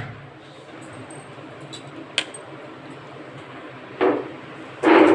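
Handling knocks on a stainless-steel colander of raw chicken: a light click about two seconds in, then two short, louder clattering knocks near the end, the last the loudest.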